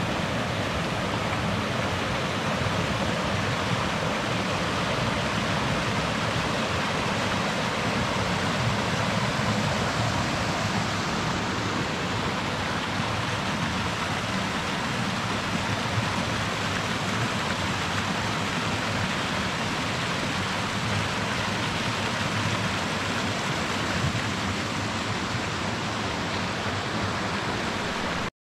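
Spring-fed mountain stream rushing over small rocky cascades: a steady rush of water that stops abruptly near the end.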